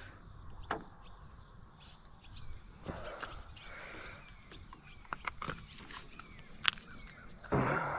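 Steady, high-pitched chorus of insects chirping, with a few faint clicks scattered through it and a brief rustling noise near the end.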